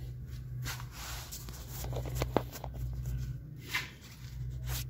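A few sharp clicks from side cutters being worked on a small part during a bench repair, with light handling noise over a steady low hum.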